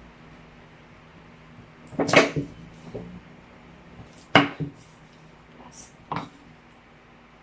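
Kitchen clatter: three separate knocks of utensils or dishes being handled, about two seconds apart. The first, about two seconds in, is a short rattle, and the sharpest click comes in the middle.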